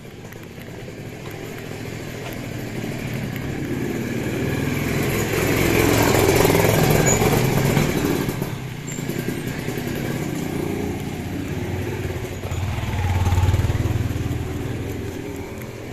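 Motorcycle engine running as it passes close and rides on, swelling to its loudest about six seconds in; a second swell of engine sound comes near fourteen seconds.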